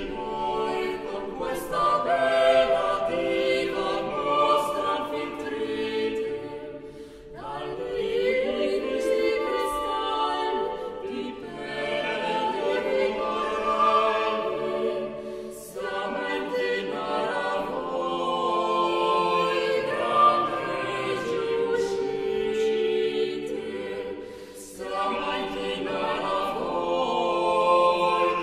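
Choral music: voices singing together in long, held phrases that break off about every eight or nine seconds.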